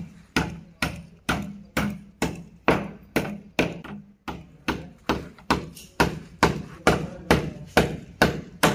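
Hammer blows on the wall at a steady rate of about two a second, with a short pause about four seconds in, as a clamp for a PVC rainwater downpipe is fixed to the masonry.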